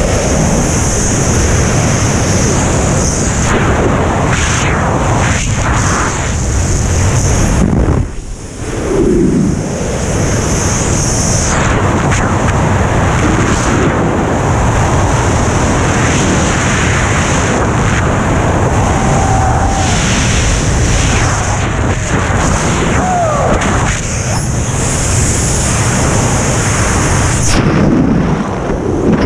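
Loud, steady rush of freefall wind blasting over a helmet-mounted camera's microphone. It dips briefly about eight seconds in.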